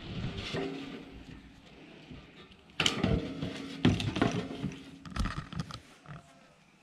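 A large camper wall panel being lifted and slid off a steel trailer frame: scraping and creaking, with sharp knocks about three, four and five seconds in, then dying away near the end.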